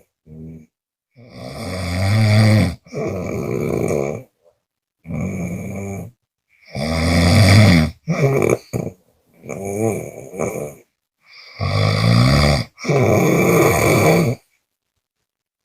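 A person snoring on both the in-breath and the out-breath: rough, rattling snores up to about a second and a half long, mostly in back-to-back pairs with short silent gaps between them. A few quicker, shorter snores come near the middle.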